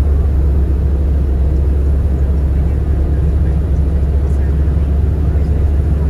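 Steady low rumble of a car in motion heard from inside the cabin: road and engine noise with no changes in speed or pitch.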